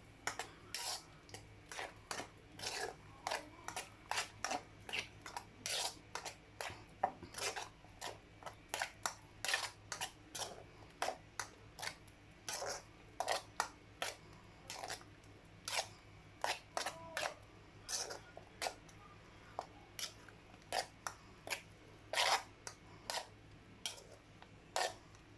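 A spoon scraping and tapping over and over in a sieve, about two short strokes a second, pressing cooked oatmeal through to strain off its thick liquid.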